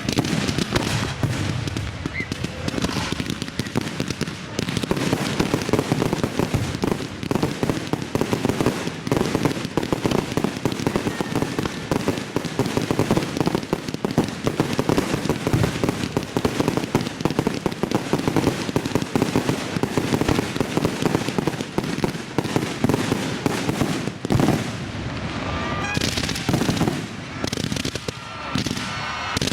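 Fireworks finale barrage: a dense, continuous run of rapid overlapping bangs and crackles from aerial shells, thinning a little near the end.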